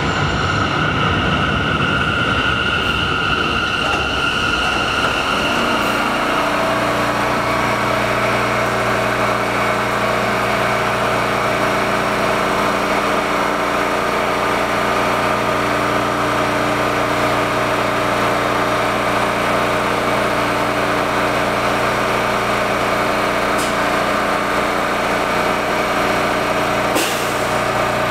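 Bombardier R179 subway train coming to a stop at the platform, its motor and brake whine fading out over the first few seconds. The stopped train then gives off a steady multi-tone hum from its onboard equipment, with a short click near the end.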